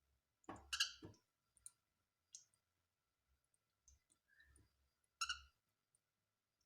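Cockatiel making a few faint short chirps and clicks: a quick cluster about half a second in and a single chirp about five seconds in.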